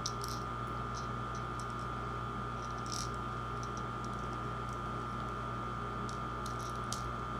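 Scattered light clicks and taps of small containers being handled, over a steady electrical hum with a constant high tone.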